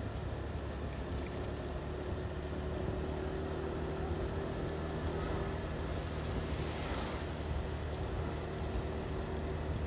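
Motorbike engine running at a steady speed while riding, a constant hum, with wind and road noise over the microphone.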